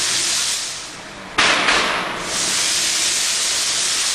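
Exhaust gas hissing out of a hole pierced in a 1998 Mercedes E320's exhaust pipe while driving, a stopgap to bypass a passenger-side catalytic converter whose disintegrated, melted core was blocking the exhaust. The hiss fades briefly, a sudden loud burst of noise comes about a second and a half in, and then the steady hiss returns.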